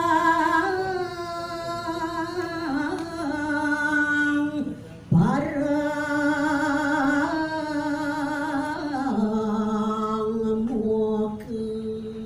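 A woman chanting a Balinese kakawin verse solo and unaccompanied, in long drawn-out notes that step slowly up and down in pitch. She pauses for a breath about five seconds in, and the line settles onto lower held notes near the end.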